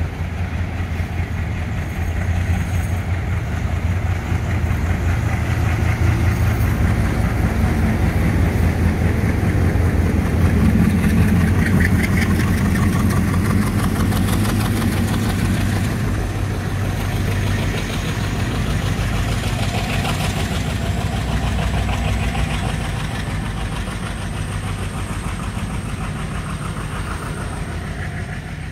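Three WDG3A diesel locomotives, each with a 16-cylinder ALCO 251 engine, working hard as bankers pushing a train from the rear, throwing black smoke under heavy throttle. The deep diesel rumble builds as they come alongside, is loudest about halfway through, then eases as they pass, with a thin high whine rising slowly in the second half.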